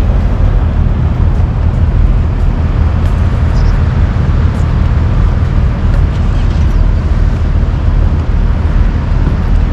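Loud, steady low vehicle rumble with no breaks or changes.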